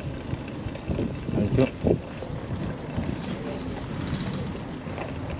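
Wind buffeting the microphone while cycling: an uneven low rumble, with a few stronger gusts about one and a half to two seconds in.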